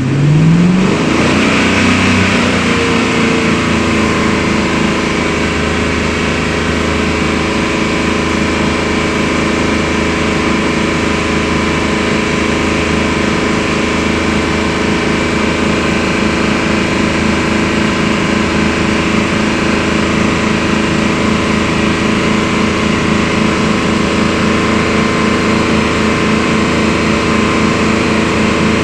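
BMW engine just after start-up: its revs flare over the first couple of seconds, drop back, and it settles into a steady idle.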